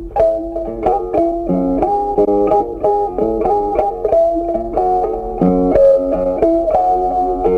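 Background music: a plucked guitar playing a quick melody of short notes.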